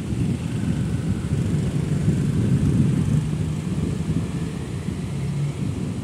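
Wind buffeting the microphone: a heavy, fluttering low rumble, with a faint low hum coming and going about halfway through and again near the end.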